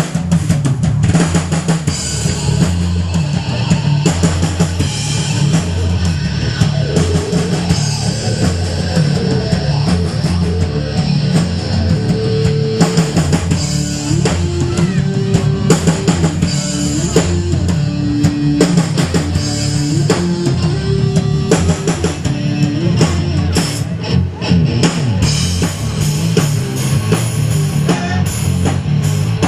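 Hard rock instrumental: a driving drum kit and bass under distorted electric guitar, with a melodic guitar line in the middle section.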